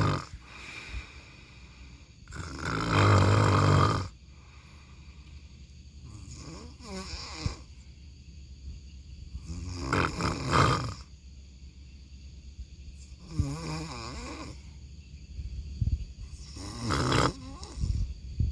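A person snoring: five rough snores about every three and a half seconds. The first, about two seconds in, is the loudest, with a low buzz; the later ones are softer and uneven.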